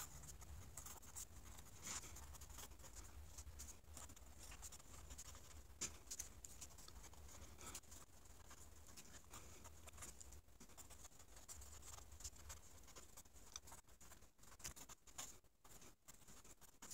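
Faint scratching of a pen writing on a paper pad.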